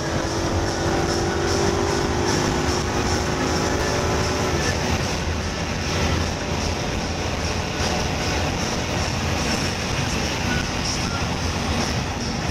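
Steady road, tyre and wind roar with the low hum of the 2016 Ford Mustang GT's 5.0-litre V8, heard inside the cabin while cruising at around 200 km/h in automatic Drive.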